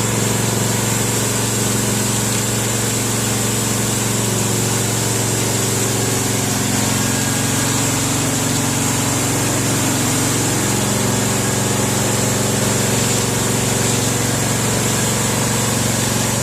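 A motor-driven machine running steadily without a break, a constant hum with a high whine above it, as from the injection equipment used to pump repair material into a wall crack.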